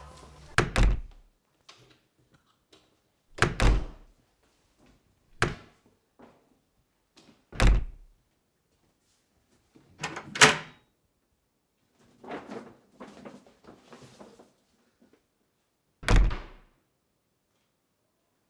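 Kitchen cupboard doors being banged open and shut one after another: six sharp thuds a couple of seconds apart, with a stretch of lighter clattering and rummaging between the last two.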